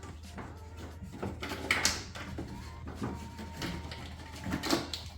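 Scattered plastic clicks and knocks as a car's interior door trim piece around the side mirror is handled after its clips have been pried loose.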